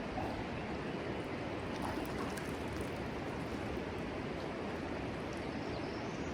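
Steady rushing of a mountain river running over rapids.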